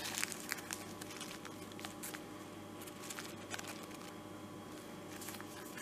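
Faint scattered rustles and light clicks of a teaspoon being dug into a paper packet of baking powder, over a steady low hum.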